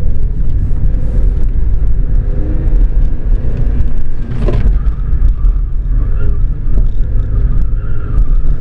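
Car engine running under throttle with a heavy low rumble of road and wind noise, heard from inside the cabin, with a brief knock about halfway through.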